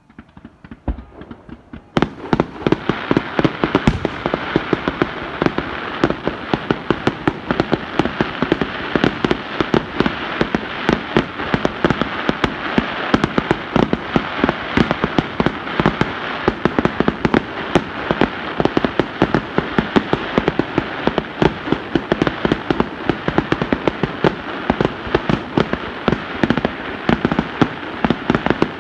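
Fireworks crackling: a dense, continuous barrage of rapid sharp pops that starts suddenly about two seconds in and keeps going, with louder cracks scattered through it.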